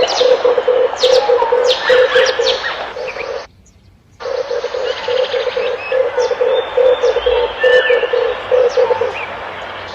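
Red turtle doves cooing in a rapid run of low, rough coos, with other small birds chirping sharply over them. The calls break off for under a second about three and a half seconds in, then resume.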